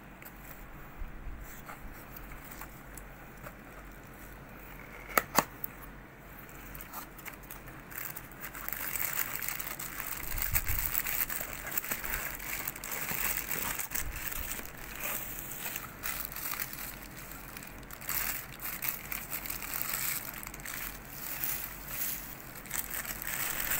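Plastic wrapping and bubble wrap crinkling and rustling as packaged parts are handled and unwrapped. It is quieter at first, with two sharp clicks about five seconds in, then busy and continuous from about eight seconds on.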